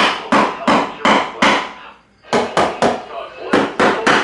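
Hammer driving into the new wooden floor blocking: a steady run of sharp blows, about three a second, with a short pause about two seconds in before the blows resume.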